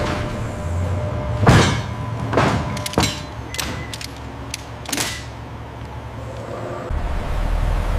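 Metal clanks and clicks of pallet jacks and a cargo ratchet strap being worked inside a truck trailer: a handful of sharp hits between about one and a half and five seconds in, several with a short scraping sweep, over a steady low hum. A deeper rumble comes in near the end.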